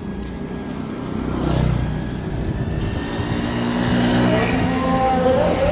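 Motorcycle engines passing on the street, over steady road and wind noise, getting louder in the second half with a rising engine tone near the end.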